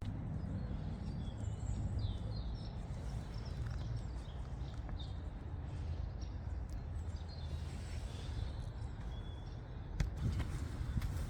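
Small birds chirping over a steady low rumble, with a few sharp clicks near the end.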